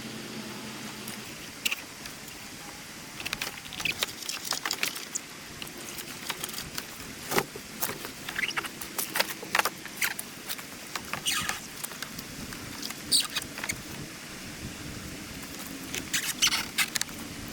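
Irregular small clicks, taps and scratches over a faint steady hiss, coming in scattered clusters.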